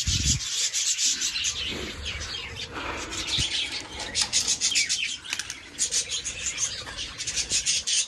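A flock of caged budgerigars chattering in a continuous fast stream of short high chirps. Near the start there is a rubbing, scraping sound of hands in a metal bowl of soft seed food.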